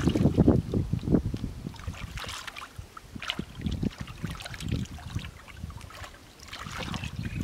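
Hands sloshing and splashing in shallow muddy water and soft mud while groping for eels, in irregular bursts.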